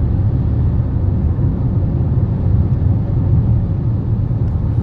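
Steady low rumble of road and engine noise inside the cabin of a car driving at highway speed.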